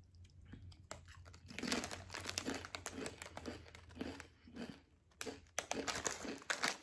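Chewing a mouthful of crisp potato chips, about two crunches a second, followed near the end by a plastic chip bag crinkling as it is handled.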